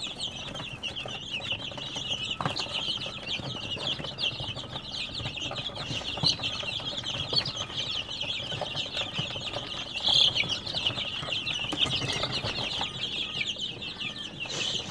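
Dozens of newly hatched chicks peeping all at once: a constant chorus of high, rapid cheeps.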